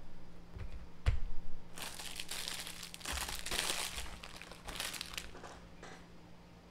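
A light knock on a desk about a second in, then packaging wrapper crinkling and rustling for a few seconds as it is handled, fading near the end.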